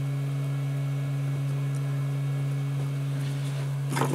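Steady low electrical hum with a fainter higher overtone, unchanging throughout. A few short knocks and rustles come near the end.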